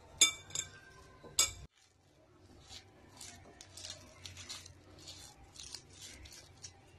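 Hand mixing onion bonda batter of gram flour, rice flour and chopped onion in a cut-glass bowl: three sharp, ringing clinks against the glass in the first second and a half, then soft, repeated squishing and scraping as the dough is pressed and kneaded against the bowl.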